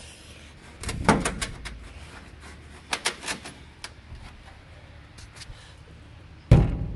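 Scattered knocks and clicks from work under a pickup truck as its fuel tank is lowered on a transmission jack. They come in a cluster about a second in and another about three seconds in, with one loud thump near the end.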